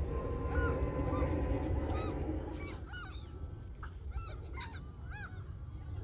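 A flock of gulls calling, many short arching cries overlapping, busier after about three seconds, over a low steady rumble.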